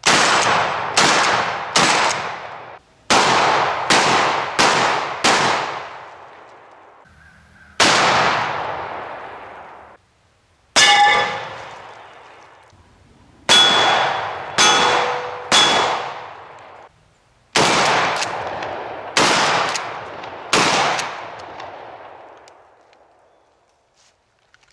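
About fifteen shots from a 12-gauge Mossberg 590A1 pump-action shotgun firing 00 buckshot. Each shot is a sharp crack followed by a long fading echo; seven come in a quick string during the first five seconds, then single shots, then two runs of three, and a few tails carry a metallic ring.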